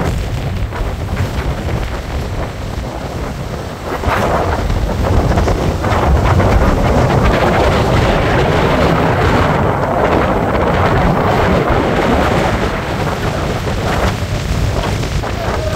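Violent gusts of wind buffeting the microphone, over the rush of rough surf breaking on the shore. The wind strengthens about four seconds in and stays strong.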